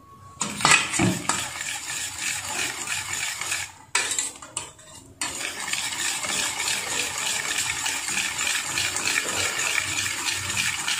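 Wire whisk beating flour into milk in a steel bowl to make a batter: a fast, steady clatter of the wires against the bowl, stopping for about a second around four seconds in, then starting again.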